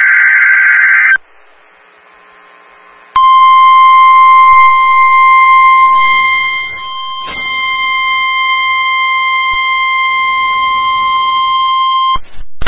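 The tail of a NOAA Weather Radio SAME digital header burst, a harsh warbling data screech, stops about a second in. After a two-second pause, the 1050 Hz weather-radio warning alarm tone sounds as one long, steady electronic tone for about nine seconds, dropping in volume about halfway through.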